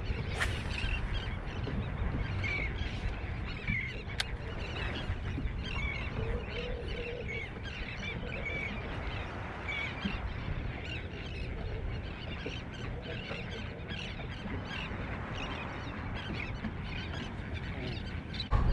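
A flock of birds calling over and over in short, high calls, over a steady low rumble.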